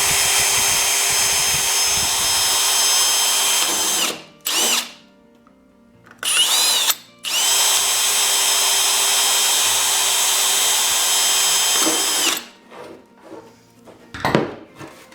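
Power drill with a small bit spinning up and drilling holes through a plastic snowmobile windshield to stitch a crack. It runs with a high steady whine in several spells, the longest about four and five seconds, with short blips between. It stops about twelve seconds in, followed by a few light clicks and a knock.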